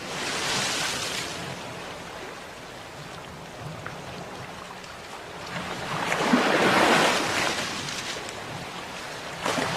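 Sea waves breaking and washing on a shore, the surf swelling in waves: one at the start, a bigger one about six to seven seconds in, and another beginning near the end.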